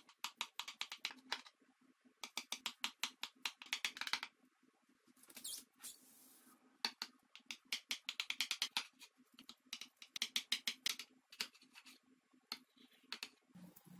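A knife cutting through the crisp baked cheese crust of a potato moussaka in a glass baking dish: quick runs of crackling crunches, stroke after stroke, with a short rustle near the middle as the dish is turned on its woven mat.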